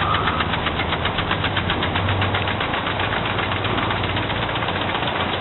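Lawn sprinklers ticking rapidly and evenly, over a steady low hum.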